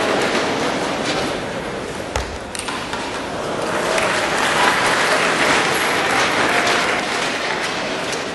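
Crowd applauding in a large sports hall, with a single thud about two seconds in. The applause dies down and then swells again midway.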